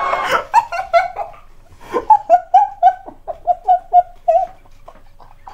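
Hearty laughter. A burst of several people laughing at once opens it, then about two seconds in one person laughs in a run of about ten short, even bursts.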